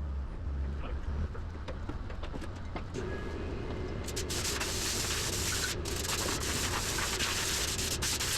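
A motor or engine running steadily with a low rumble; a steady hum joins about three seconds in, and a loud hiss starts about four seconds in and keeps on.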